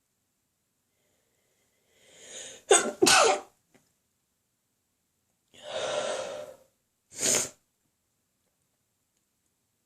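A person sneezing twice, about four seconds apart. Each sneeze comes as a sharp burst after a drawn-in breath.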